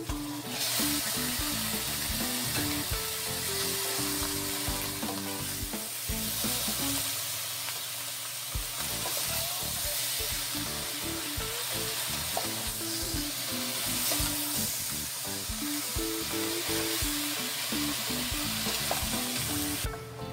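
Food frying in hot oil in a pan, a steady sizzle that starts suddenly just after the start and stops near the end.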